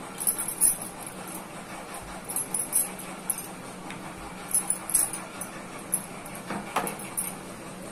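Rolling pin rolling a ball of dough flat on a board: soft intermittent rubbing and light knocks over a steady faint hum.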